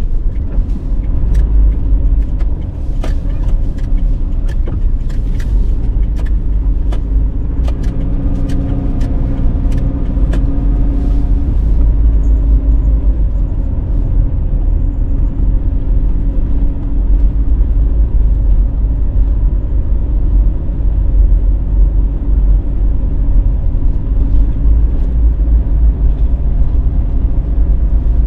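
Car driving along a road, its engine and tyre rumble low and steady as heard from a car-mounted camera, with a scatter of sharp clicks through the first dozen seconds.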